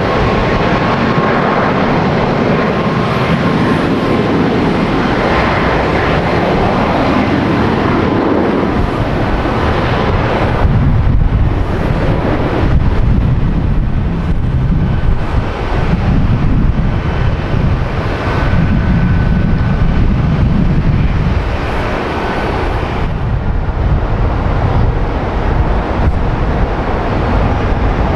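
Jet airliner engines, a loud steady rushing with a faint thin whine on top; the deep rumble grows heavier about ten seconds in.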